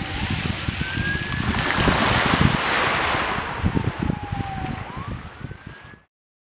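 Sea waves washing on a beach, with wind gusting on the microphone. A faint wail rises and falls slowly twice, like a distant siren. All sound cuts off suddenly near the end.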